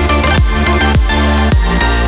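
Background electronic dance music: a deep kick drum hitting about twice a second under sustained synth chords.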